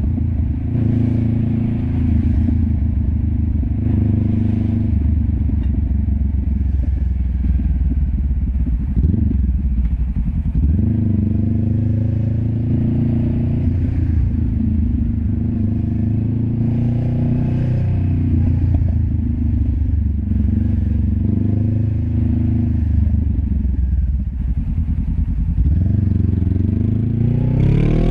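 Honda CB500X's parallel-twin engine heard at its LeoVince LV10 slip-on exhaust, pulling at low to moderate revs in stop-and-go traffic. The revs rise and fall repeatedly with throttle and gear changes, with a quick climb in revs near the end.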